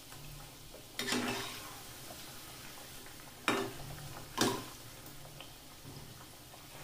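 Nimki frying in a kadai of hot oil with a faint, steady sizzle, the heat switched off under it. A perforated metal skimmer turning the nimki over clinks sharply against the kadai three times, about a second in, near the middle, and once more just after.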